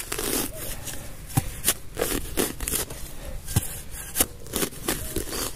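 Shovel digging in hard ground: irregular scraping and crunching of soil, with several sharp knocks.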